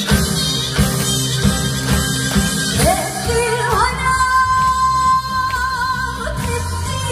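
Live band accompaniment, then a woman's singing voice entering about three seconds in with a rising glide. She holds long notes with vibrato over the band.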